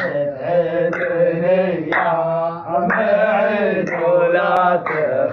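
A man's voice chanting an Arabic nasheed in long, drawn-out held notes over a steady low pitch, with a few brief breaks between phrases.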